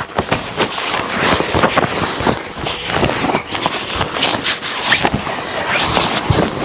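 Inflated air mattress scraping and rubbing against tent fabric as it is pushed through the tent door, with continual rustling and many short knocks and scuffs.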